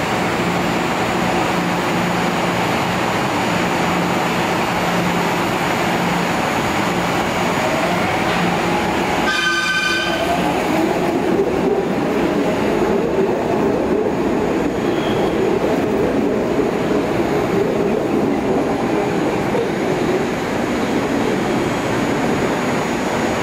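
Adtranz M4 subway train on the Market-Frankford Line, standing with a steady hum, then sounding a short horn blast about ten seconds in. It then pulls out of the station, its wheels rumbling and its traction motors whining, the whine bending in pitch as it gathers speed.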